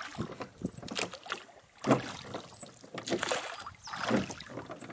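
Oars of a small rowing boat dipping and pulling through lake water, with a splash and swish at each stroke about once a second.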